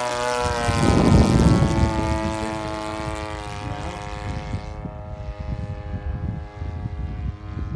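Radio-controlled model airplane's engine and propeller droning steadily at about half throttle during flight, with a loud rushing noise about a second in.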